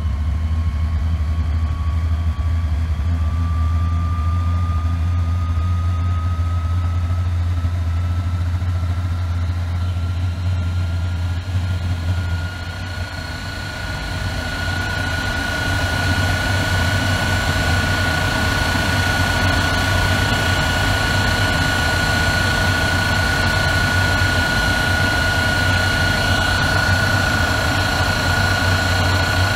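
Messerschmitt Me 262's Junkers Jumo 004 axial-flow turbojet running up on the ground: a low rumble under a turbine whine that climbs steadily in pitch over the first dozen seconds or so, then holds at a steady, stronger pitch. The rumble changes and dips briefly in loudness about twelve seconds in as the engine settles at higher speed.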